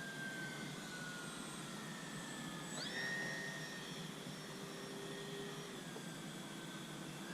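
Motor of a radio-controlled Cessna 182 model plane whining in flight, with steady hiss behind it. The pitch sinks slowly, then rises sharply about three seconds in as the throttle is opened, holds, and eases down a little near the end.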